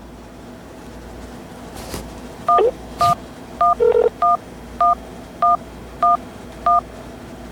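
Telephone keypad tones over a phone line: the same two-note touch-tone beep sounds about eight times, roughly every half second, with one lower short tone partway through.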